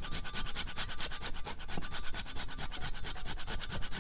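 Chopped walnut filling with cinnamon, sugar and syrup being stirred in a bowl: quick, even rubbing and scraping strokes, about eight a second.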